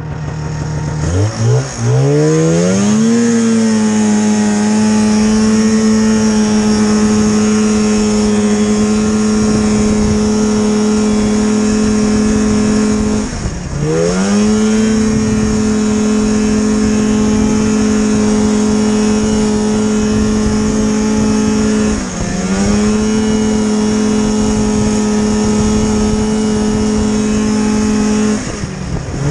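Polaris snowmobile engine, heard from the rider's seat, revving up from low speed over the first few seconds and then running at steady high revs under throttle. It briefly drops in pitch and climbs back twice, and drops again near the end, with a constant rush of wind and track noise underneath.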